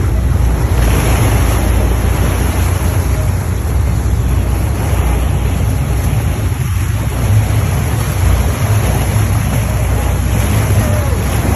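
Sportfishing boat under way: a steady low engine rumble with rushing water from the hull and wake, and wind buffeting the microphone.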